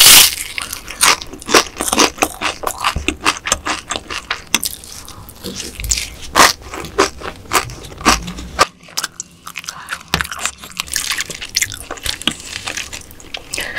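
Close-miked mouth sounds of biting into and chewing soy-sauce marinated raw crab with rice: a rapid run of sharp, wet clicks and crunches, loudest at the first bite, with a short lull a little past the middle before the chewing picks up again.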